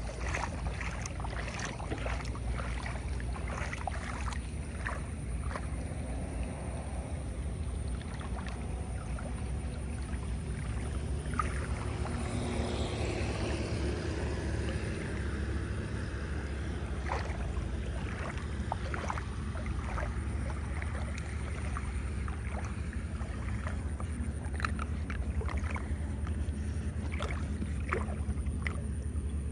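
Muddy floodwater draining down a partly cleared storm drain, with a steady low rushing rumble and scattered small splashes and clicks as a bare foot stirs the water over the grate.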